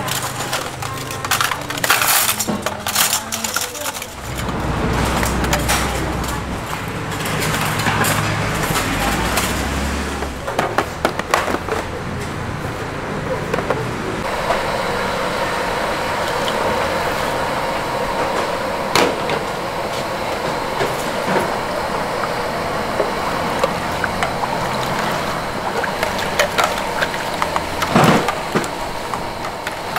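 Street-food stall kitchen sounds: irregular clatter and knocks of cookware and utensils, with background voices. About halfway through, a steady noise settles in, and two sharp knocks stand out near the end.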